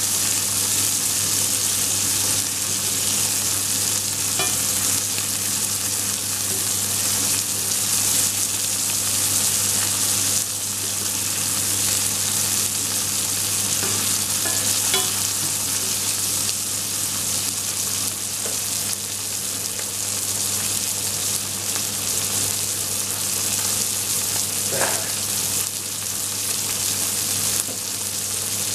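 Steak frying in butter with garlic cloves in a cast-iron skillet, a steady sizzle while it is basted with a spoon.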